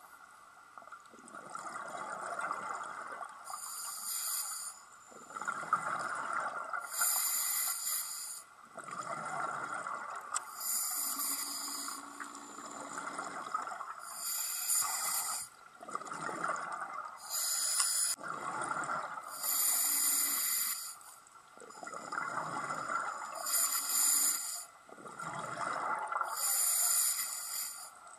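Scuba diver breathing through a regulator underwater, in a regular cycle: a hissing inhale through the regulator, then a short burst of bubbling exhaust bubbles. The cycle repeats roughly every three to four seconds.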